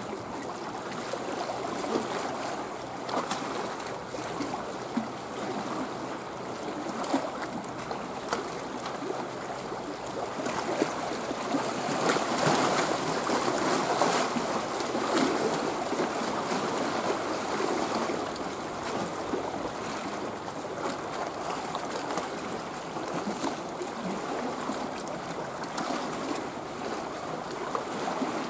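Small waves lapping and splashing at the water's edge, a steady watery wash that swells for a few seconds around the middle.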